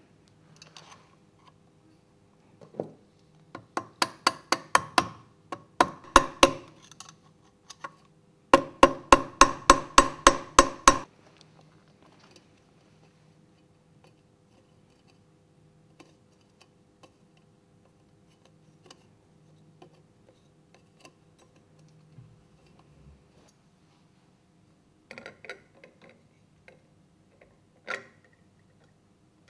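Ratchet spanner clicking in three quick runs, about five sharp metallic clicks a second, as the nut on the pump's motor shaft is run down. It is followed by a quiet stretch and a few light knocks and taps of parts being fitted near the end.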